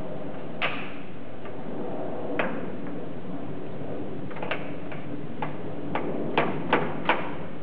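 Scattered sharp metal clicks from a bearing being pressed onto a milling-machine back-gear shaft, with steel tubing set over it in a shop press. The clicks come more often near the end, over a steady hum.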